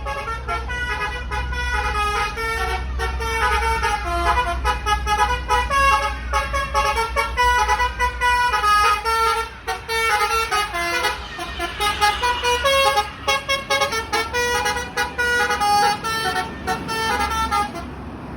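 Indonesian bus telolet horn, a Basuri multi-tone horn, playing a rapid tune of tooting notes that jump up and down in pitch over the steady low idle of the bus engine. The tune stops shortly before the end.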